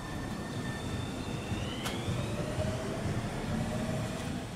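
Electric commuter train pulling away from the platform: a steady rumble of wheels and running gear, with the traction inverter's whine rising in pitch as it gathers speed. There is one sharp click about two seconds in.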